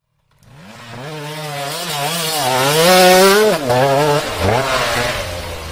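KTM LC4 640 single-cylinder four-stroke engine revving, growing louder and higher in pitch, falling off suddenly about three and a half seconds in, then picking up again briefly. The engine is cold, so it is held back from full throttle.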